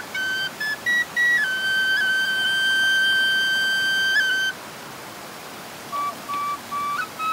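Wanjli, a small folk flute, played solo. A few short notes lead into one long held note of about three seconds; after a pause, lower short notes come in and step upward near the end.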